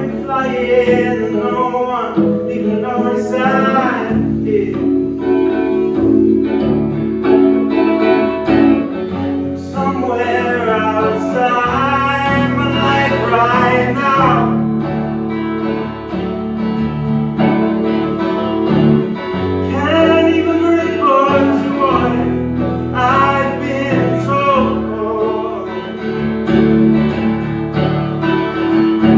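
Live song: a man singing over his own electric guitar. The sung lines come in phrases of a few seconds, with the guitar playing on steadily between them.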